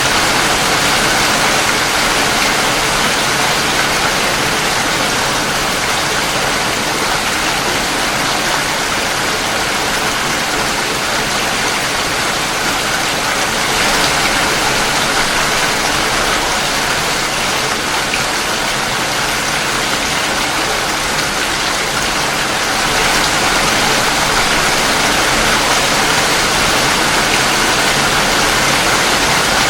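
Steady heavy rain, a dense, even hiss without breaks.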